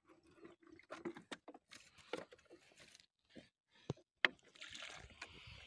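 Hand sloshing and squelching through a shallow muddy puddle, a run of irregular wet slaps and clicks, with one sharp click about four seconds in.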